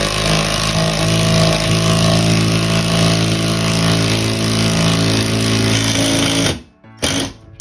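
Milwaukee impact driver with a half-inch socket running steadily as it drives a lag bolt through a TV wall-mount bracket into a wall stud. It stops about six and a half seconds in, then runs again for a short burst near the end.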